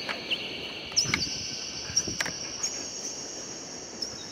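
Several high, steady whistling tones at different pitches overlap, each starting with a quick slide and then holding. Footsteps on paving stones thump lightly underneath, with a couple of sharper clicks.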